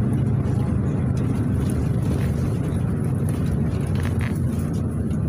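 A PAZ 32054 bus's engine and road noise heard from inside the passenger cabin while driving, a steady low drone with a few faint rattles near the end.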